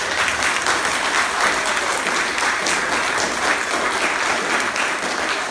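Audience applauding, a dense, steady burst of clapping from a seated crowd.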